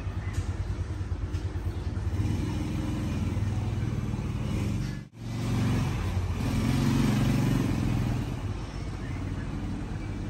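A vehicle engine running steadily, cut off for an instant about halfway, then growing louder for a couple of seconds before settling again.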